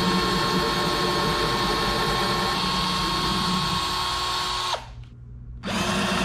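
Power drill running steadily as it bores a handle hole through a drawer front. It stops about five seconds in and starts again under a second later.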